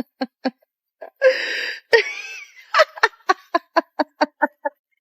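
A person laughing in a run of short, rapid ha-ha pulses, about four a second, with a longer breathy outburst about a second in and the laugh trailing off near the end.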